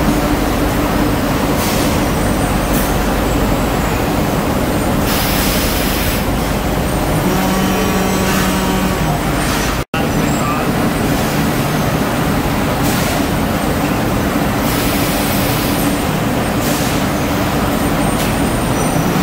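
Steady, loud factory machinery noise in a powder-coating plant: a constant rush with a low droning hum, with a few brief bursts of hiss.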